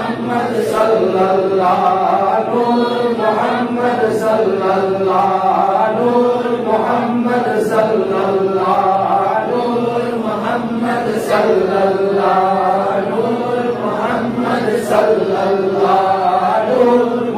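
Men chanting Sufi zikr in Arabic, a melodic devotional phrase sung over and over every few seconds without a break.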